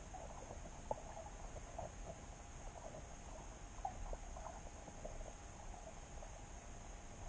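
Underwater ambience picked up by a submerged camera in its housing: a steady low rumble with a high hiss, faint steady tones, and scattered small clicks and crackles, the sharpest about a second in.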